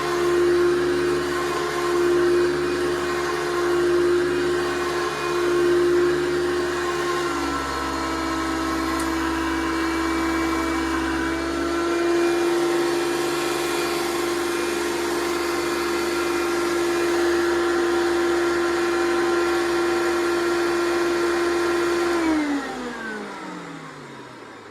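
Motor of a 1993 Hoover PowerMax U3721-910 upright vacuum cleaner running with a steady whine; the pitch drops slightly about seven seconds in. Near the end it is switched off and the whine falls in pitch and fades as the motor spins down.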